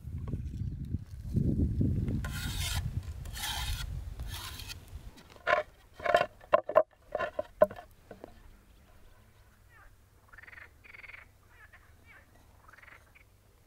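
Hands squeezing and kneading a mound of wet chopped greens, a squelching rub over a low rumble that cuts off about five seconds in. A quick run of about six sharp wooden knocks follows, like a wooden rolling pin on a board. Near the end come faint soft rustles of flour being poured.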